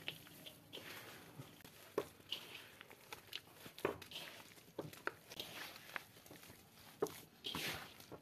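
Hands kneading a wet mix of mud and wheat straw in a pan: faint, irregular squelches and rustles, slightly louder near the end.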